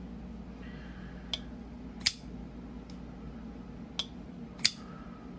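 Folding knife's blade and lock clicking as the blade is cycled to test the freshly adjusted pivot tension: four sharp clicks in two pairs, the second click of each pair the loudest.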